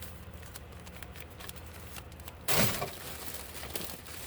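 A bag being opened and handled: light crinkling and rustling, with one short, louder rustle about two and a half seconds in.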